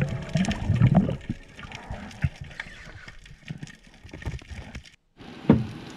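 Underwater sound picked up by a diver's camera: muffled water movement and gurgling with many scattered sharp clicks. The sound drops out briefly near the end, then there is one sharp knock.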